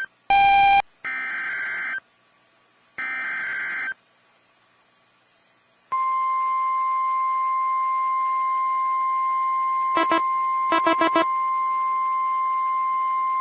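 NOAA Weather Radio Emergency Alert System tones: short warbling digital data bursts of the SAME alert header with gaps between them, then about six seconds in the steady 1050 Hz warning alarm tone begins and holds, with a few short beeps over it near ten and eleven seconds in. The tones mark the start of a tornado warning broadcast.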